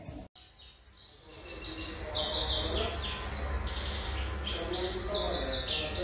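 Domestic canary singing a fast, continuous song of repeated high, descending notes, building up after a brief break near the start.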